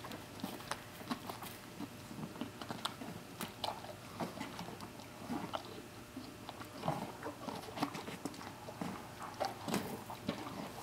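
A horse chewing an apple, with irregular wet crunches and clicks of his teeth.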